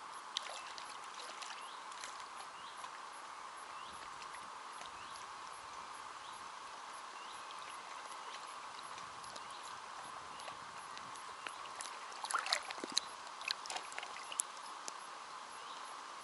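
A hooked bream splashing at the surface as it is drawn in and brought to hand, with a cluster of sharp splashes about twelve to fourteen seconds in. Underneath is a faint, steady wash of lapping water.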